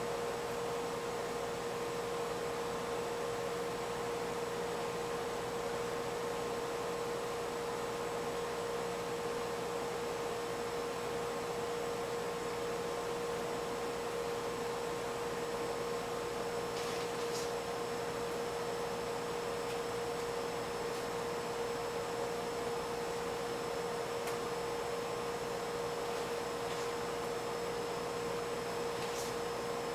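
A steady hum at one pitch over an even hiss, with a few faint ticks in the second half.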